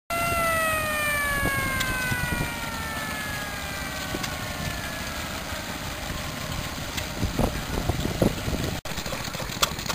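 Small Fowler stationary engine running a belt-driven water pump, with a high whine that slides down in pitch over the first five seconds and fades out. A few sharp clicks come near the end.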